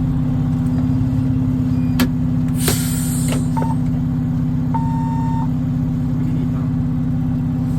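Fire engine's diesel engine running steadily with a low drone. About three seconds in comes a short hiss of air, like an air-brake release, and about two seconds later a short electronic beep.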